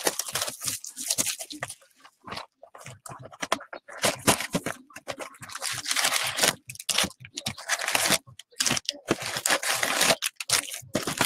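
Cellophane shrink-wrap crinkling and tearing as a box of baseball cards is unwrapped and opened, then foil card packs rustling and scraping as they are pulled out and stacked. The crackling comes in irregular clusters with short pauses.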